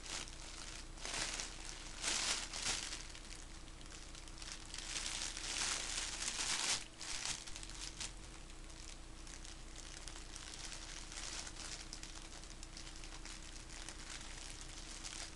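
A turtle crunching on food: irregular crackling crunches, loudest in bursts during the first seven seconds or so, then fainter, over a faint steady hum.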